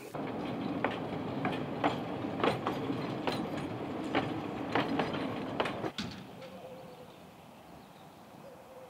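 Tram running on its rails, a steady rumble broken by irregular clicks and knocks from the wheels and track. About six seconds in the sound drops suddenly to a much quieter background.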